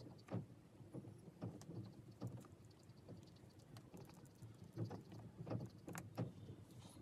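Faint, irregular small taps and soft rustles from painting at a table: a fine brush touching watercolour paper and a hand shifting on a clear protective sheet, over a low steady hum.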